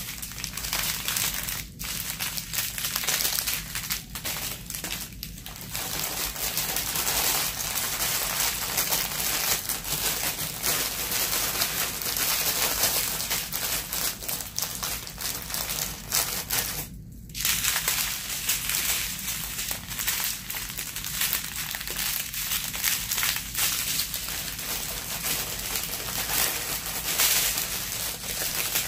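Cellophane and clear plastic packaging crinkling continuously as it is handled and unwrapped, with a brief pause about seventeen seconds in.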